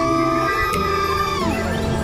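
Background music with held notes, with a racing quadcopter's motors whining over it: the pitch sits high, then drops away about three quarters of the way through as the throttle comes off.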